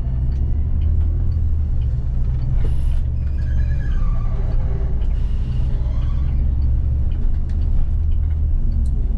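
City bus engine and drivetrain running with a steady low rumble, heard from inside the bus, with a few brief higher tones about halfway through.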